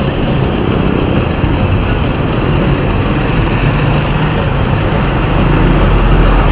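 Steady, loud rumble of road traffic.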